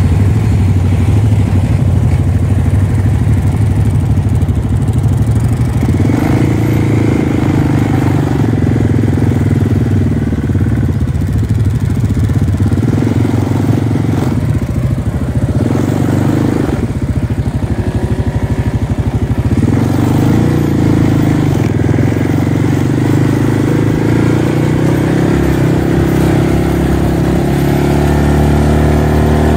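ATV engine close by: it runs evenly at first, then is throttled up and eased off several times as the quad pulls away and rides along the road, with the pitch climbing again near the end.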